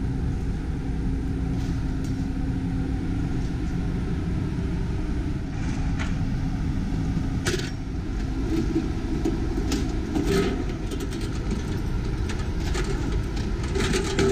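Steady low rumble of a warship's deck at sea, with a faint constant hum. A few light clicks come in the second half.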